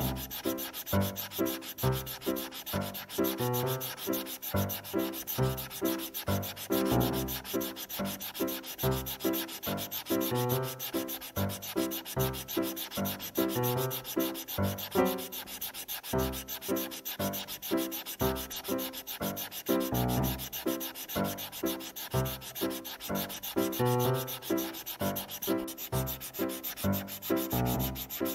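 A pen tip rubbing back and forth in quick, regular colouring strokes, roughly two a second, scratching steadily the whole time.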